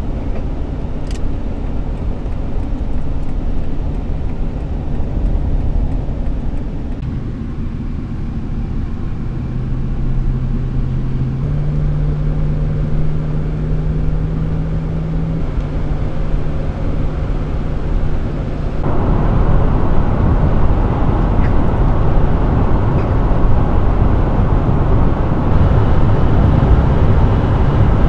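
Road and engine noise from inside a conversion van cruising on a highway. About ten seconds in, a low steady hum comes through and steps up slightly in pitch. At about nineteen seconds the sound changes suddenly to louder tyre noise on wet pavement.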